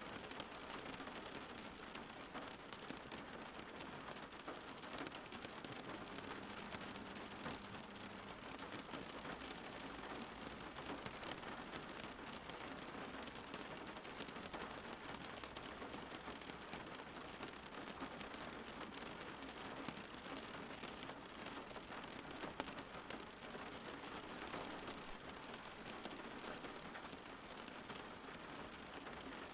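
Steady rain falling, a dense, even hiss made of many small drop ticks.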